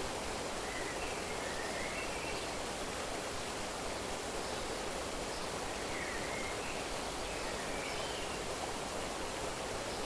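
Steady rush of flowing water, with faint short bird chirps a few times.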